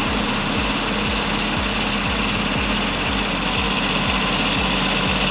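Loaded logging truck's diesel engine labouring uphill under heavy load, a steady drone with a low pulsing several times a second: the engine straining against the weight.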